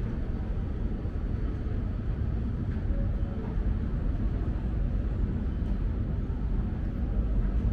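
Subway station ambience: a steady low rumble with no distinct events, the kind of din of trains and machinery that fills a New York subway station.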